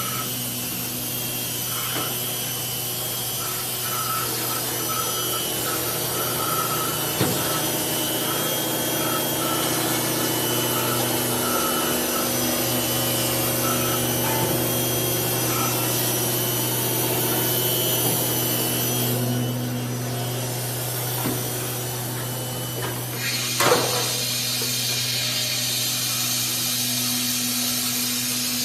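4-axis CNC router spindle running steadily with a low hum as its bit carves a block of foam, a continuous rough cutting hiss over it. The hiss briefly thins about two-thirds of the way through, followed by a single sharp knock.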